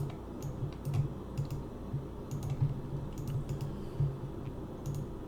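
Typing on a computer keyboard: irregular keystrokes, about two or three a second, each a light click with a dull thud.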